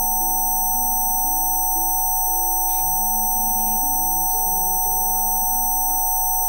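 Several steady pure sine tones, some low and some high-pitched, held unchanging over soft ambient music whose low notes shift every second or so: a Rife frequency therapy track.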